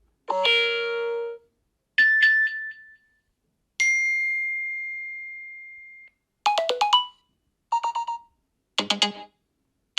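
A run of short iPhone ringtones and alert tones played back one after another with brief silent gaps: about six chiming melodic snippets, one of them a single high ringing note that fades away over about two seconds.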